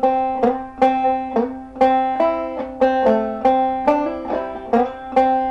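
Five-string banjo played clawhammer style in double C tuning: a melody phrase of sharply struck, ringing notes, with strong beats about twice a second.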